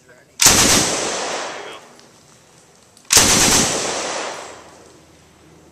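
An M60 7.62 mm machine gun on its bipod firing two short bursts of automatic fire, about three seconds apart, each one dying away quickly after it stops.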